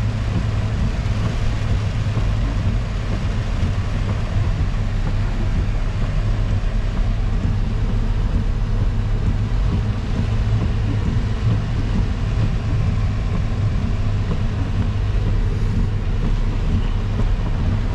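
Car driving along, a steady low rumble of engine and road noise heard from inside the cabin.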